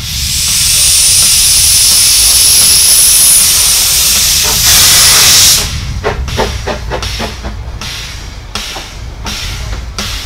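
Narrow-gauge steam tank locomotive blowing loud hissing steam from its cylinder drain cocks, which cuts off suddenly just past halfway; then its exhaust beats follow in a quick even rhythm of about four a second as it moves off.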